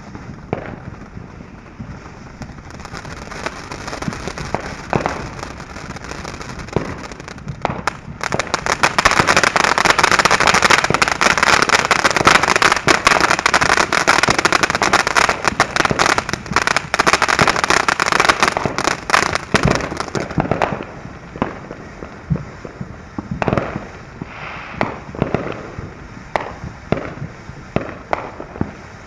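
Phantom Fireworks Vibrant Voltage fountain firework burning: a hissing spray thick with crackling that turns loud about eight seconds in, then about twenty seconds in falls back to scattered pops and crackles as the fountain dies down.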